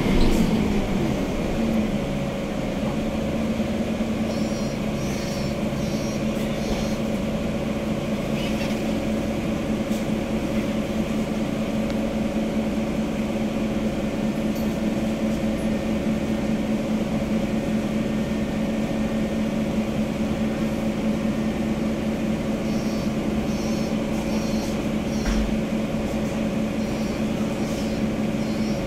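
Mercedes-Benz Conecto K articulated city bus heard from inside the cabin, its OM470 six-cylinder diesel winding down as the bus comes to a stop in the first two seconds, then idling with a steady hum while it stands. Faint high chirps come twice.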